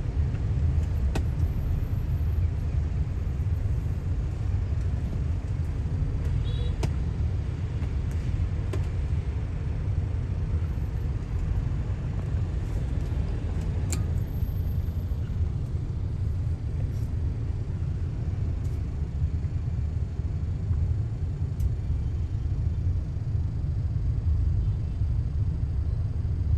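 Steady low rumble of a car's engine and tyres heard from inside the cabin, with a few faint scattered ticks.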